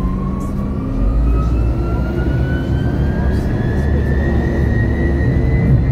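2017 MAN Lion's City Hybrid city bus heard from inside the cabin: the drive gives a whine that rises steadily in pitch as the bus gathers speed, over a low rumble that grows about a second in.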